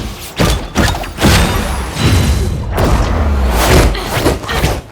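Designed fight sound effects: a series of heavy punch and hit impacts with thuds and booms, over a deep low rumble.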